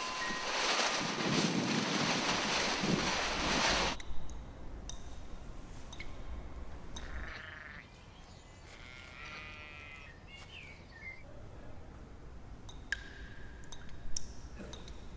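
A loud rushing noise that cuts off abruptly about four seconds in, followed by a sheep bleating twice, the second bleat longer and wavering, with a few sharp clicks.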